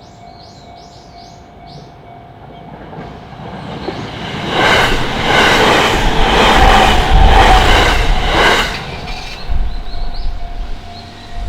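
JR Hachiko Line train passing over a level crossing. It builds up, runs close by with the wheels clattering in a regular beat over the rail joints, then fades away. A steady tone sounds underneath throughout.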